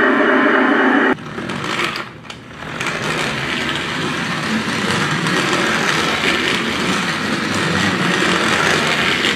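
Whirring electric motor and gears of a radio-controlled Grave Digger monster truck driving across a wooden floor. About a second in, the RC tank's loud engine noise cuts off suddenly.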